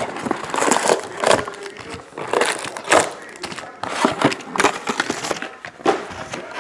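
Plastic shrink-wrap crinkling and tearing and a cardboard box being handled as a sealed trading-card hobby box is opened, in an irregular run of sharp crackles and rustles.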